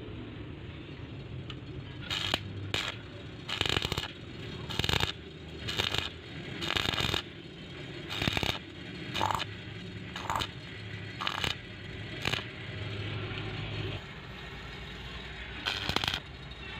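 Short, harsh rasping bursts of metalwork on steel, about a dozen at uneven spacing, over a steady low hum.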